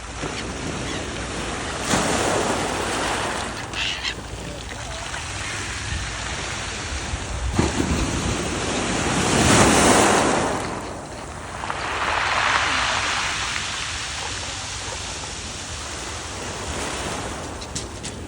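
Black Sea waves washing onto the beach, rising and falling in slow swells, the loudest about ten seconds in, with a steady low wind rumble on the microphone.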